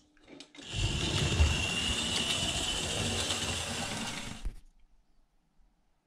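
Märklin H0 model steam locomotive (3084, class 50 with cabin tender) running on the track, its electric motor and gears giving a steady whirring whine for about four seconds before it stops abruptly.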